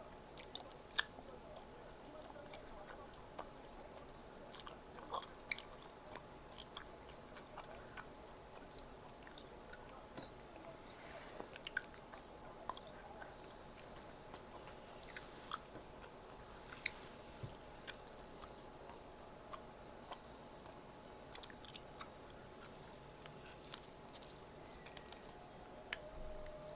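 A person eating at close range: scattered sharp clicks and smacks of chewing, with a few longer crunchy bites around the middle. A faint steady hum runs underneath.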